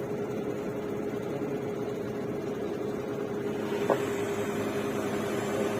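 DTH borewell drilling rig running steadily with a constant machine hum, with one short knock about four seconds in.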